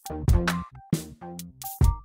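Electronic music with a drum beat.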